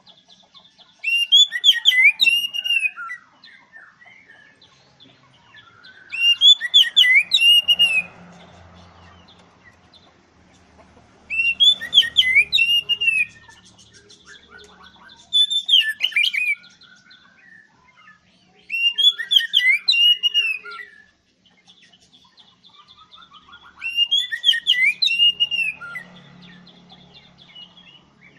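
Oriental magpie-robin (kacer) singing loudly: six short phrases of quick, bending whistled notes, one every four to five seconds.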